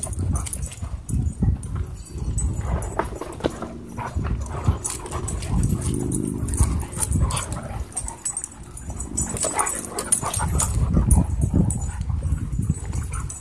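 A pack of dogs, huskies and a wolf dog among them, wrestling at close quarters: scuffling and thuds, with a drawn-out dog vocalization about six seconds in.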